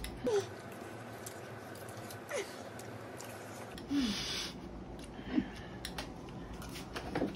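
Two people eating instant noodles quickly from bowls with forks: light clicks of the forks against the bowls and chewing, with a few short grunts and a brief hiss about four seconds in.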